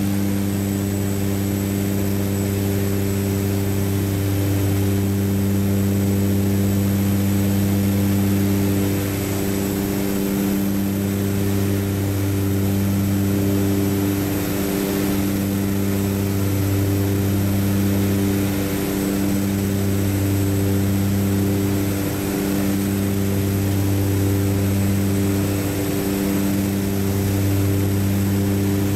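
Propeller aircraft engines and propellers droning steadily in cruise, heard from inside the cockpit: a low humming tone with its overtones, wavering slightly every few seconds.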